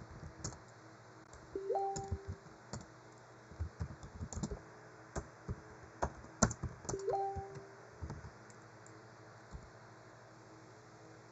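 Irregular clicks and taps of a computer keyboard, a few at a time with short gaps between. Three times, about five seconds apart, a short two-note tone sounds: a low note held briefly, then a higher one.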